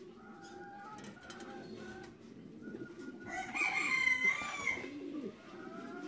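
Many caged fancy pigeons cooing continuously, mixed with the calls of other show birds; a louder, drawn-out call about three seconds in lasts roughly a second and a half and is the loudest sound.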